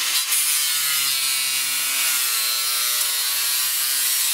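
Electric angle grinder running a cardboard disc that rubs through a thin wooden strip: a loud, steady grinding hiss over the motor's whine, the whine dipping a little in pitch partway through. The cardboard disc cuts by friction heat, burning through the wood rather than sawing it.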